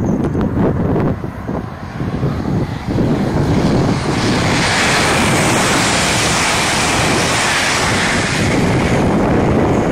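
Lumo Class 803 electric train passing at high speed: a dense rush of wheels on rail and displaced air builds about four seconds in and holds until near the end. Heavy wind buffeting on the microphone runs underneath, and it is the main sound before the train arrives.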